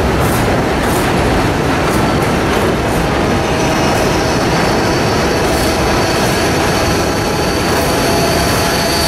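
New York City subway train passing close alongside an elevated platform: a steady, loud rumble of steel wheels on the rails with clicks over the rail joints. From about three and a half seconds in, a thin, high wheel squeal joins in.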